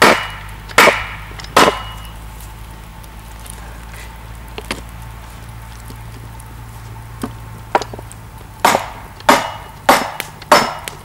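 Hatchet blows on a wooden board laid over a whole chicken, breaking its joints to flatten it: three sharp wooden knocks under a second apart, a pause of several seconds, then a quicker run of five knocks near the end.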